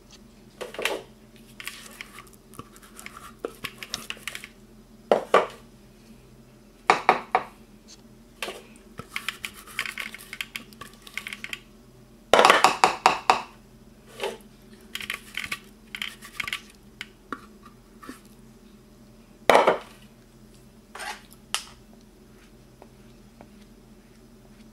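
A silicone spatula and a metal spoon scraping thick hummus into a glass dish: uneven scrapes and clinks, with a few sharper knocks of utensil on the dish.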